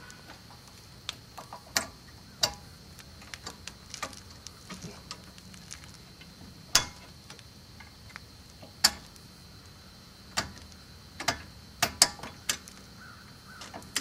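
Irregular sharp metallic clicks and taps of brake caliper guide pins and the anti-rattle spring being worked into place on a Mercedes W126 Bendix caliper during a brake pad change, the loudest about seven, nine and twelve seconds in.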